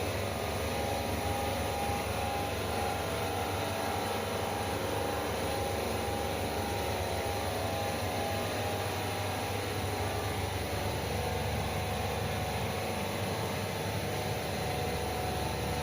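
Cold-room chiller unit running with a steady, unchanging mechanical hum.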